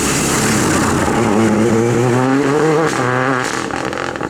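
Renault Clio R3T turbocharged rally car engine accelerating hard, its pitch climbing for about two seconds, then dropping sharply near three seconds in as the driver lifts or changes gear, with a short second rise before it falls away.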